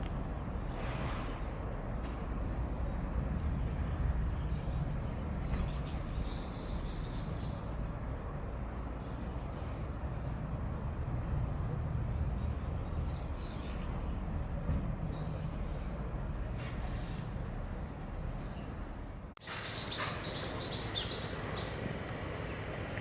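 Steady low outdoor rumble with short bursts of high chirping. The chirps are brief a few times early on and come thicker and louder just after an abrupt cut about nineteen seconds in.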